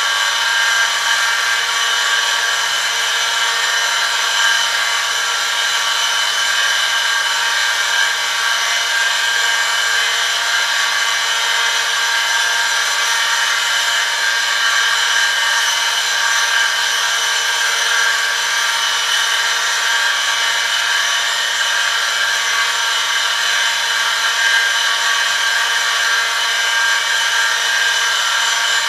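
Oil friction-test rig running: an electric motor spins a metal wheel against a metal test sample pressed on by a lever loaded with 1 kg, the contact lubricated with Eurol Sportbike 10W-40 oil at 100°C. A steady high-pitched whine over metal-on-metal scraping, unchanging throughout.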